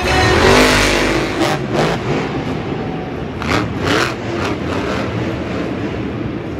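Monster truck engines revving, the pitch rising and falling, over a steady loud rumble. A few short, sharp rev blasts stand out in the middle.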